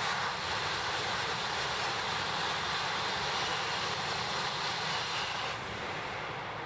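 Tohoku Shinkansen bullet train, an E2-series set coupled to an E3, passing at high speed: a steady rushing noise that drops away about five and a half seconds in as the last car goes by.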